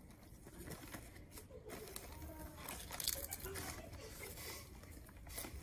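Lay's potato chips crunching in the mouth, with light crinkling from the chip bag.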